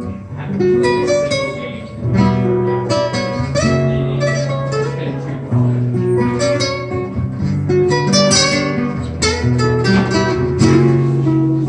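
Acoustic guitar music: a strummed rhythm part with picked melody notes over it.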